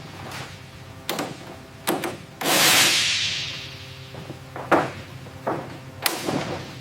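Hand tools at work on metal aircraft parts: a few scattered sharp clicks and knocks. About two and a half seconds in, a sudden loud hiss fades away over roughly a second.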